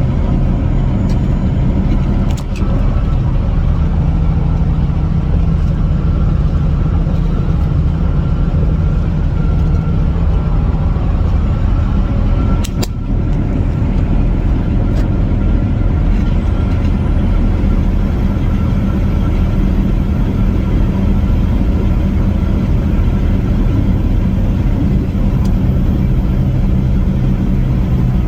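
Semi-truck's diesel engine running steadily, a continuous low hum.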